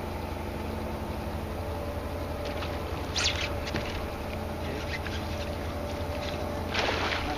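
Bass boat's electric trolling motor humming steadily, with a few brief clicks partway through and a short rush of noise near the end.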